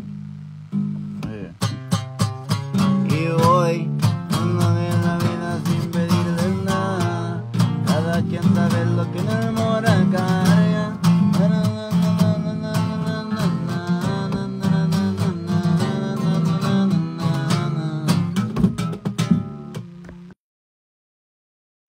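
Acoustic guitar strummed in a steady rhythm, chords ringing between the strokes. The sound cuts off suddenly to silence near the end.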